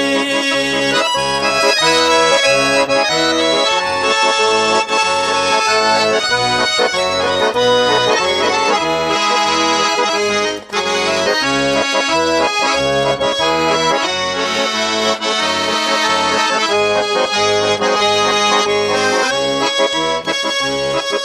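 Instrumental break of a Russian pop song: an accordion plays the melody over a steady bass-and-chord beat.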